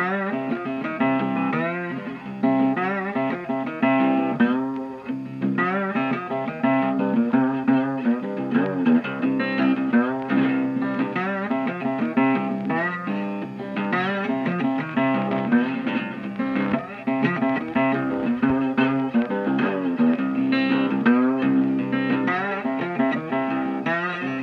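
Background music: a guitar-led track with plucked and strummed guitar.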